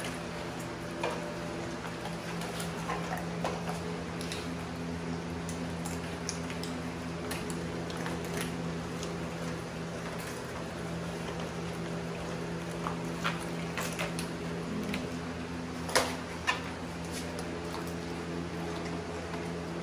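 Pit bulls chewing raw whole fish in wire crates: scattered short crunches and sharp clicks, with two louder ones in quick succession about three-quarters of the way through, over a steady hum.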